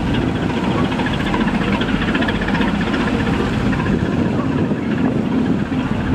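Canal passenger boat's engine running steadily under way, with its propeller wash churning the water at the stern.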